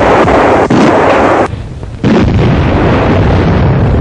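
Heavy artillery firing: loud blasts and their rumble, with a sharp report just under a second in, a short drop in level about a second and a half in, then a sudden fresh blast about two seconds in.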